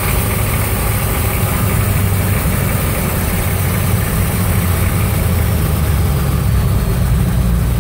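Hummer M998's V8 diesel engine running steadily with a low rumble as the truck drives along, heard from inside the cab.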